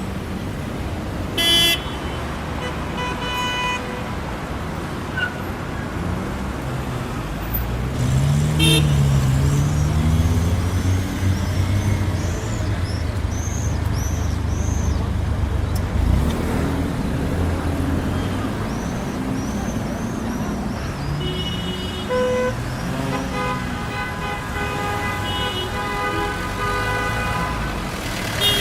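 City street traffic: vehicle engines and tyres running steadily, with a vehicle pulling away about eight seconds in. A short car horn honk comes near the start, and several horns toot repeatedly in the last seven seconds.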